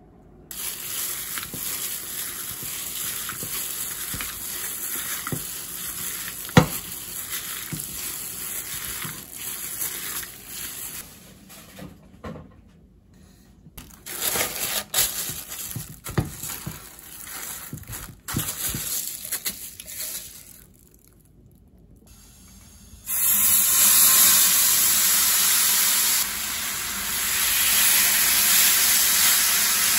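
Hands working sauce into raw pork in a steel bowl, then plastic rustling as a bag is pulled over the bowl. From about 23 seconds in, the loudest part: soy-marinated pork sizzling steadily in a frying pan as it is turned with tongs.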